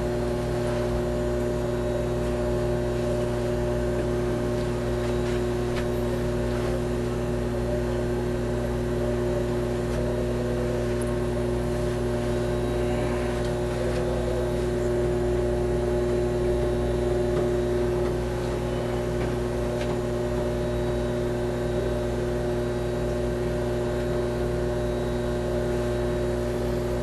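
Steady hum of control-room equipment: several constant tones over a low drone, with no change.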